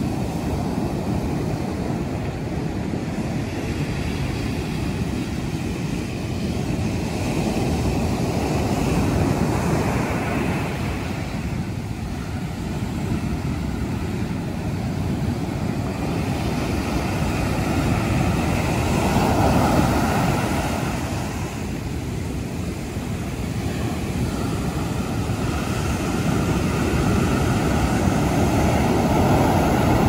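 Rough sea surf breaking and washing up a sand beach, swelling about every ten seconds, with wind rumbling on the microphone.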